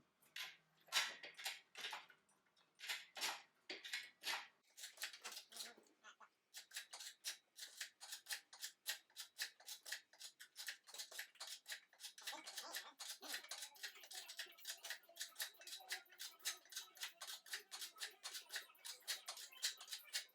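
Hand ratchet clicking as bolts are worked: a few separate strokes, then from about six seconds in a fast, even run of clicks, several a second.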